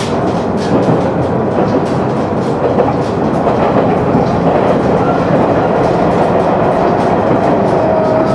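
KiHa 100 diesel railcar running at speed, heard from inside the car: a loud, steady rumble of engine and wheels with wheel clicks over the rail joints, as the train passes into a tunnel.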